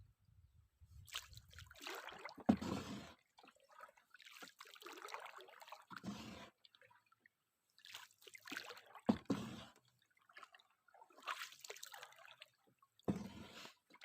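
Water sloshing and dripping in short, irregular bursts a couple of seconds apart.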